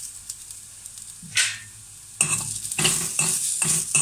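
Tempering of mustard seeds, onion, dried chilli and curry leaves frying in oil in an aluminium kadai. A short loud sizzle comes about one and a half seconds in. From about two seconds on, a spatula scrapes and stirs the mix around the metal pan in quick strokes, about three a second.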